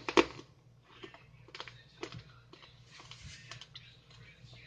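A plastic candy wrapper crinkling as a Blow Pop mini lollipop is unwrapped: two loud crackles at the start, then a run of small irregular clicks and crackles.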